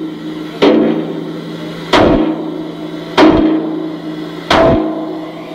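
Hammer blows on the steel of an EMD locomotive diesel engine block under repair. There are four hard, even strikes about 1.3 s apart, each leaving a metallic ring that dies away before the next.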